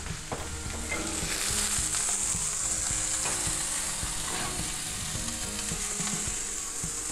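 Seared chicken breasts sizzling steadily in a hot cast-iron skillet.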